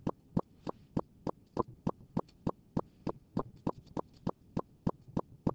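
Steady ticking: short, sharp ticks evenly spaced at about three a second.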